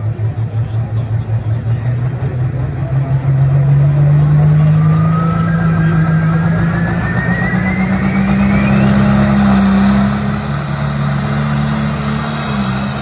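Case IH Puma 210 tractor's diesel engine revving up hard at the start of a pull, its pitch climbing steadily for several seconds with a high whistle rising alongside, typical of the turbocharger spooling up. Near the end it eases off slightly.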